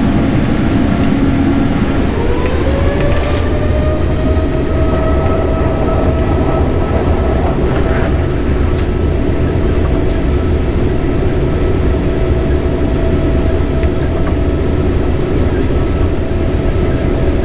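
Jet airliner's turbofan engines at takeoff power, heard inside the cabin: a loud, steady rumble with a whine that rises about two seconds in and then holds at a steady pitch.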